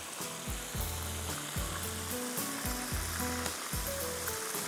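Broast chicken pieces frying in oil with a steady sizzle, over background music with a regular beat.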